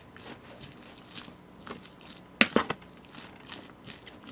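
A spoon stirring bibimbap in a plastic takeout container: soft squishing of rice, with scattered clicks and scrapes of the spoon against the container, the loudest pair about two and a half seconds in.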